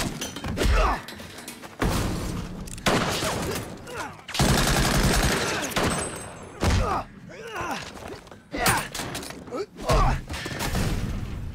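Fight-scene sound effects: a run of hard punch and body impacts with grunts, and a burst of automatic rifle fire lasting about a second and a half around the middle.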